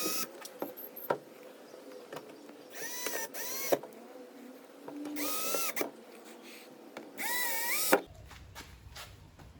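Cordless impact wrench motor spun up in free air in four short trigger pulls, each about a second long, whining up to speed and winding down with a click as the trigger is released. No hammering is heard.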